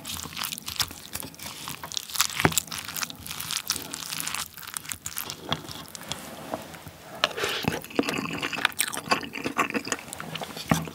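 Wooden spoon mixing rice with seasoned cockle sauce in a ceramic bowl: a steady run of clicks and scrapes of the spoon against the bowl with squishing of the sauced rice, busiest in the second half.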